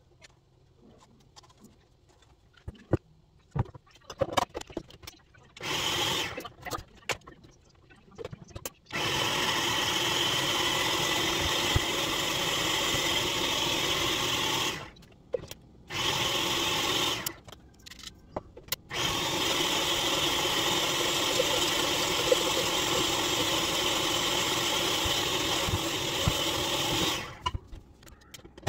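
Countertop blender running in spells while blending a cashew, water and non-dairy milk base for vegan mayo: a short burst about six seconds in, then a long steady run, a brief one, and another long run, with short stops between. Light clicks and knocks of handling the blender come before the first run.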